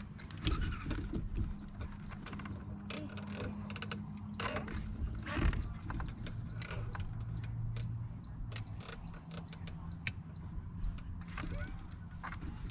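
Irregular small clicks, taps and knocks of fishing tackle and a caught fish being handled aboard a boat, over a steady low hum.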